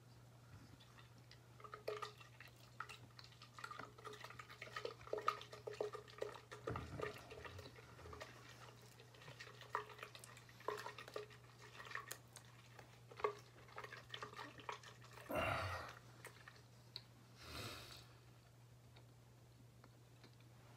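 Faint wet mouth sounds of a person chewing and swallowing, a run of small smacking clicks, then two heavy breaths out near the end.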